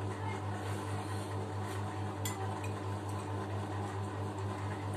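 Spoons and forks clicking faintly against ceramic noodle bowls during eating, over a steady low hum.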